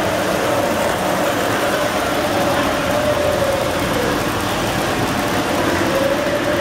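Model train running past on its track: a steady motor hum and the rolling of its wheels, with a faint tone that wavers slightly in pitch.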